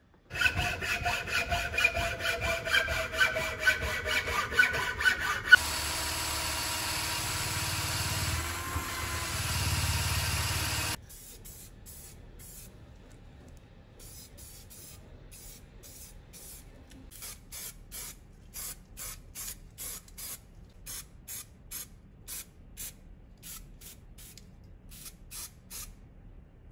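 Aerosol spray-paint can hissing in short bursts, about two a second, in the second half. Before it, a louder stretch of rapid rhythmic noise and then a steady noise cuts off abruptly about eleven seconds in.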